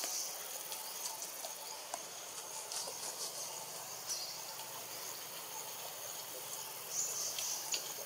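Forest insects buzzing in a steady high-pitched chorus that swells louder a few times, most strongly about seven seconds in, with a few faint scattered clicks.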